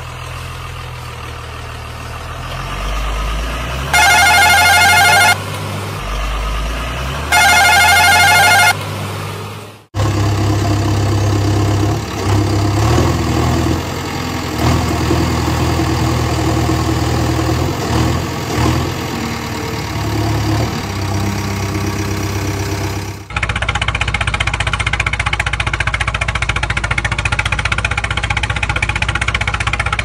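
Vehicle engine running, in three stretches split by abrupt cuts. In the first, two loud horn blasts of over a second each sound about four and seven seconds in. The second stretch runs unevenly. The third, from about 23 seconds, is steadier and hissier.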